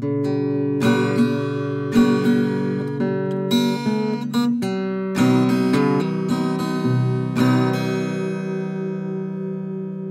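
Outro music of acoustic guitar strumming chords, the last chord struck about seven seconds in and left to ring, slowly fading.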